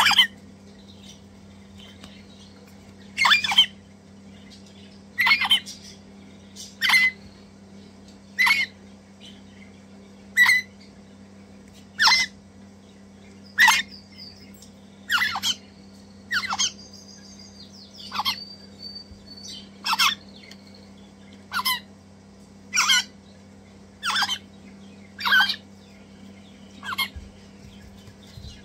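Crimson rosella chicks giving short begging calls while being hand-fed, one call about every one and a half seconds.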